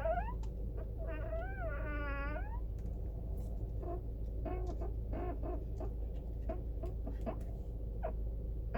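Car steering squeaking as the wheel is turned: a drawn-out squeal that bends up and down in pitch, then shorter squeaks and a few clicks. A steady low hum runs underneath.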